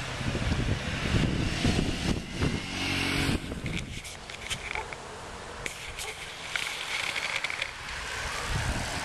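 Wind buffeting the microphone for about the first three and a half seconds, then quieter outdoor sound with scattered light ticks.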